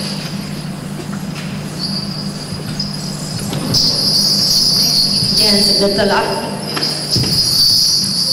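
Dugso dancers' small brass bells jingling continuously as they dance, over a steady low drone. A brief voice sounds about two-thirds of the way through.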